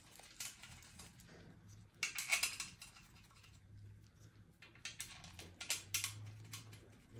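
Steel bolts clicking and rattling against metal as they are handled and started by hand in the side bolt holes of a Range Rover 4.4 V8 diesel engine block, in two short spells of clicks.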